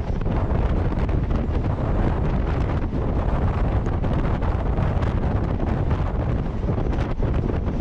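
Heavy wind buffeting the microphone held outside a moving electric suburban train (EMU), over the steady low rumble of the train running along the track.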